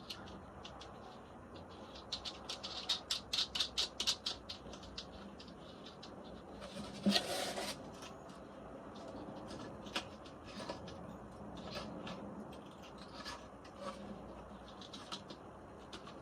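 Small drawer-knob hardware handled by hand as tiny nuts are threaded onto the knob screws: a quick run of light clicks and taps, a short rustle about seven seconds in, then scattered single clicks.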